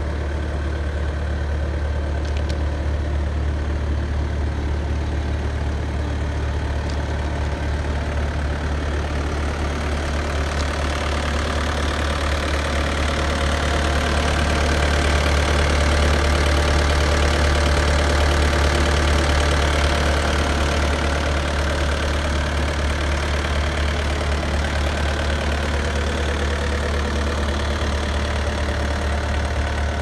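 Bobcat A300 skid steer's 81-hp Kubota turbo diesel idling steadily, louder about halfway through.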